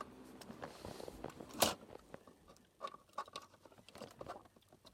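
Scattered light clicks and taps of small objects being handled, with one sharper click about a second and a half in, as something is plugged in.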